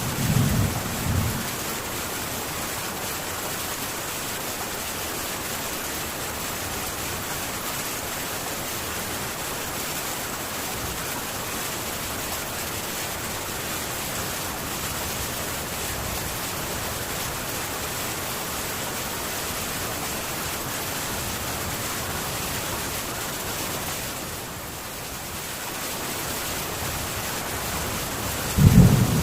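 Heavy rain falling steadily on a metal tin roof. A low thunder rumble dies away in the first second or so, and another rumble begins near the end.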